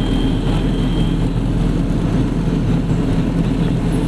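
Steady low rumble of engine and tyre noise from a car driving along a road, with a faint thin whine during the first second.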